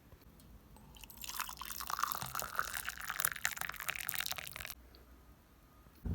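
Water running for nearly four seconds, starting about a second in and cutting off abruptly.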